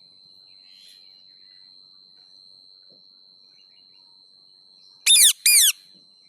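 A parrot gives two loud, high calls in quick succession about five seconds in, each sliding down in pitch. A faint steady high whine, like a cricket, runs underneath.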